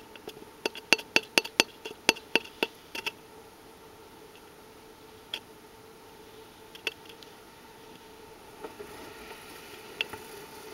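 Light, sharp clicks and taps on a cardboard tube as a cat's face and paws touch its rim, heard from inside the tube: a quick irregular run of about a dozen in the first three seconds, then three single taps spaced out.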